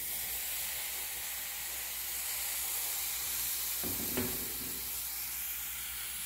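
Water poured into a hot pot of browned smoked sausage sizzling and hissing as it turns to steam, starting suddenly and running on steadily. A brief knock about four seconds in as the pieces are stirred.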